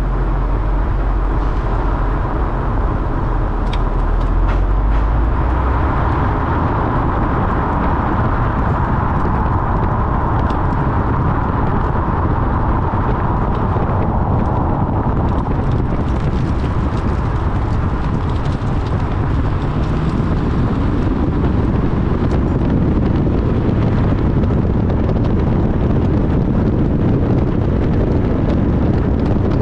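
Honda Civic Type R (FL5) on the move: steady road and tyre noise with the car's running underneath, and a few faint ticks.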